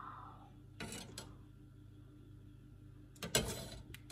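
Kitchenware being handled: two light clicks about a second in and a louder clatter about three and a half seconds in, over a low steady hum.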